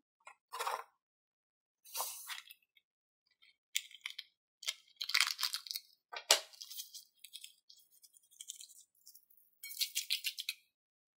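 Sequins and confetti shaken out of a cut-open balloon and sprinkled onto foamy slime on a glass plate, in several short, irregular bursts with a light, crisp rustle.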